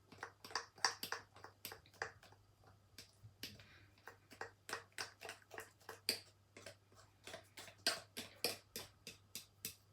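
Pancake batter being beaten by hand in a bowl: the utensil clicks against the bowl in a steady rhythm, about three strokes a second.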